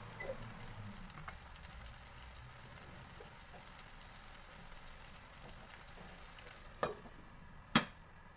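Egg and tomato sizzling as they fry in a wok, with fine crackles throughout. Near the end comes a knock, then a louder clink as a glass lid is set onto the wok, and the sizzle turns duller under the lid.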